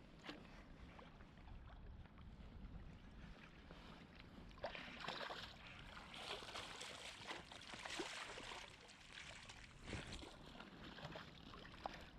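Creek water running with irregular splashing, heavier for a few seconds from about four and a half seconds in.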